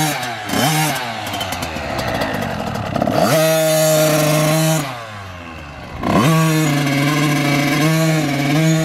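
Small kids' dirt bike engine revving up as it pulls away, then held at a steady pitch. The revs drop off about five seconds in and pick up again a second later, wavering slightly with the uneven throttle.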